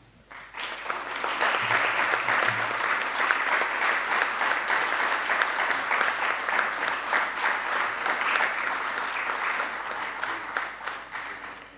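Audience applauding, swelling within the first second, holding steady, then dying away near the end.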